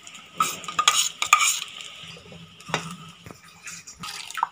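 A steel slotted ladle stirring freshly added ground masala paste into boiling sambar in a metal pan, with scattered scrapes and clinks of metal on metal.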